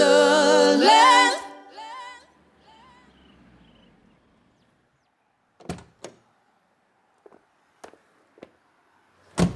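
A cappella voices holding a final chord that fades out about a second and a half in. After a quiet pause come a couple of clicks, a few light ticks, and then a loud, sharp thunk near the end: a Renault 4's car door being shut.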